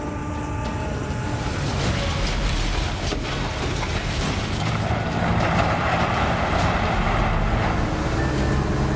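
Heavy machine's engine running, a steady low rumble, with a louder rush of noise from about five to seven and a half seconds in.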